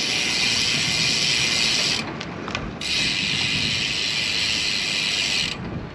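Road bike's rear freehub ratcheting while coasting, a fast, even buzz of pawl clicks that cuts out briefly about two seconds in and again near the end.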